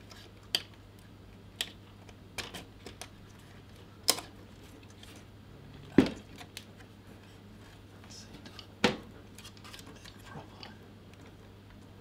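Scattered plastic clicks and taps as DDR4 memory modules are pressed down into a motherboard's memory slots. The sharpest click comes about six seconds in and another near nine seconds, over a faint steady low hum.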